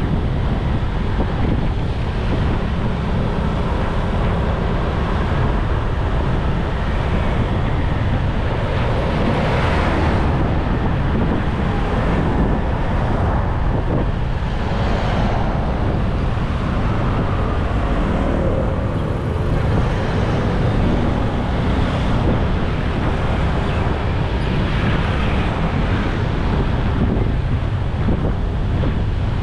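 Wind buffeting the microphone on a moving motorbike, over steady road and traffic noise. Louder swells from passing vehicles come about ten and fifteen seconds in.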